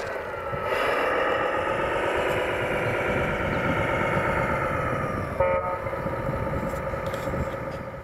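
Electric drive motors and gearboxes of RC construction models whining under load in sand, the pitch slowly falling, with a short sharp clunk about five and a half seconds in.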